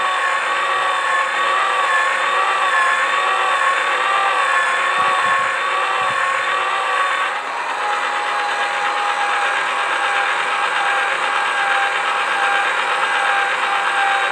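Small electric motor of a toy plastic pottery wheel running, a steady whine that wavers slightly in pitch as the hands press on the spinning clay. About seven seconds in the whine drops to a lower pitch.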